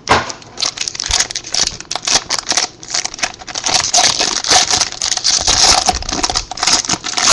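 A foil trading-card pack wrapper being crinkled and torn open by hand: dense, irregular crackling throughout.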